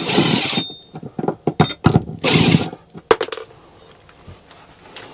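Plastic case of a small 4G router being pulled apart and handled: two short scraping bursts with clicks and knocks between them, and a sharp click a little after the second.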